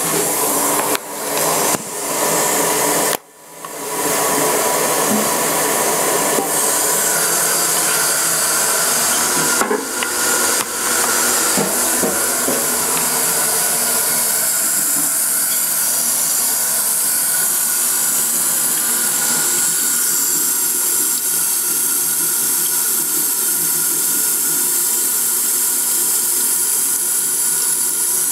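Crane toilet tank refilling after a flush: a steady hiss of water running through the fill valve, with a few handling knocks and a brief dip in level about three seconds in.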